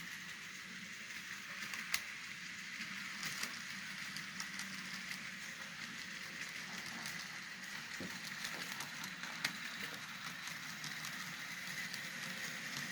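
Model train running slowly: a steady faint motor whir, with scattered sharp clicks as wheels pass over rail joints while passenger cars are backed through a rebuilt switch-to-flextrack joint.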